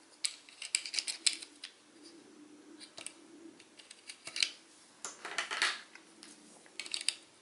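Light plastic clicks and taps from handling a transforming robot action figure and a translucent replacement canopy piece held against its chest: scattered clicks in small clusters.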